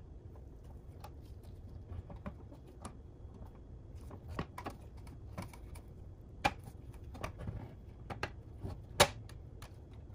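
Scattered light clicks and taps of parts of a 1970s Tonka toy dump truck being handled and fitted, grille and wheels, with two sharper knocks in the second half, over a low steady hum.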